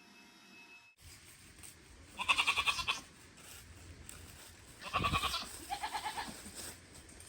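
Goats bleating: a long quavering bleat about two seconds in, another about five seconds in, then a shorter one right after, goats begging for food.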